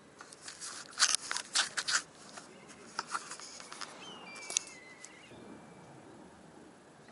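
A quick run of sharp crackling clicks close by, about a second in, with a few more near three and four and a half seconds. About four seconds in comes a thin, falling whistled bird call.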